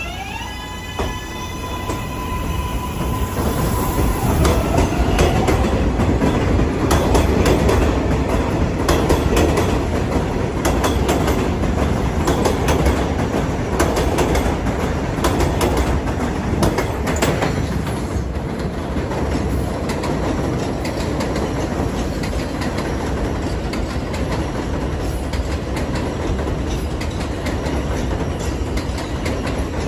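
R143 subway train pulling out of the station. Its traction motors whine in rising tones as it starts moving, then the cars rumble and clack over the rail joints as they pass close by, loudest in the middle, easing into a steadier rumble near the end.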